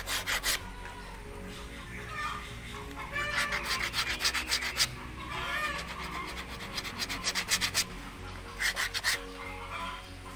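Emery sandpaper rubbed back and forth by hand along a white needlefish lure blank, in several short runs of quick rasping strokes. A chicken clucks in the background around the middle.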